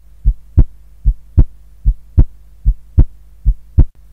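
Heartbeat sound effect: five double beats, each a softer low thump followed about a third of a second later by a louder one, at roughly 75 beats a minute, over a low steady hum.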